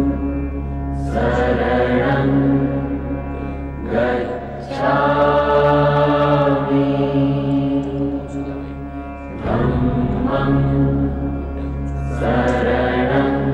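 Buddhist mantra chanting set to music: a voice sings long held phrases, each a few seconds long, over a steady low drone.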